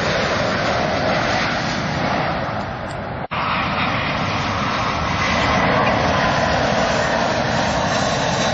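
Jet airliner engines roaring steadily as the plane passes low on approach. The sound drops out for an instant about three seconds in, where the recording is cut, and the roar then picks up again.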